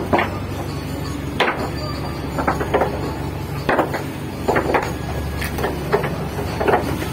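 A boat engine running steadily at low pitch, with irregular knocks and clatter about once or twice a second as a fishing net is handled over the boat's side.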